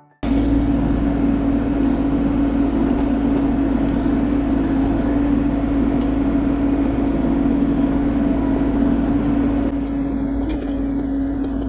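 Bobcat E42 mini excavator's diesel engine and hydraulics running steadily, heard from the operator's seat, with a strong steady drone. Near the end it eases off slightly.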